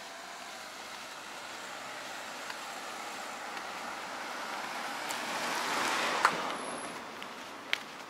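A road vehicle passing by: tyre and engine noise swells to a peak about six seconds in, then fades. A sharp click comes at the peak and another near the end.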